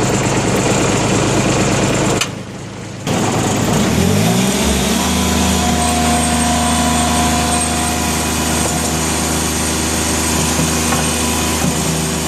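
Bobcat S70 skid steer's small three-cylinder Kubota diesel running. The sound drops away briefly about two seconds in, then the engine speed rises over about a second and holds steady at a higher speed.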